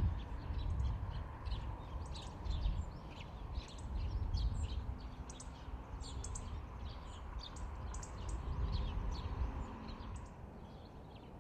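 Small birds chirping in many quick, short calls over a low, uneven rumble; the chirping thins out near the end.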